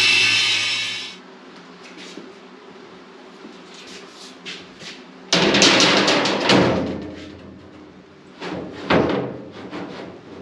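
A table saw cutting thin aluminium sheet stops about a second in. About five seconds in, a large aluminium sheet is set down on the metal tank with a loud clatter that rings and fades, and clatters again more briefly near the end.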